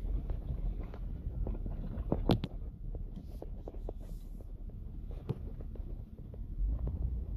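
Jeep Grand Cherokee crawling over a rough, rocky dirt track, heard from inside the cabin: a steady low rumble broken by frequent small knocks and rattles. The sharpest jolts come about two seconds in and again just past five seconds.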